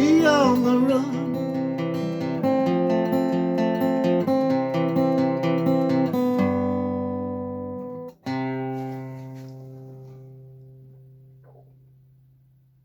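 Acoustic guitar playing the closing bars of a song, with the singer's last sung word trailing off in the first second. A final strummed chord a little after eight seconds rings out and fades away to silence.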